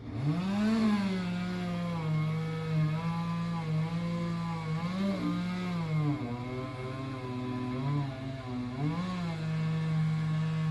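Chainsaw cutting birch limbs: it revs up, runs at a steady high pitch, and drops in pitch a few times around the middle as it bogs under load before rising again.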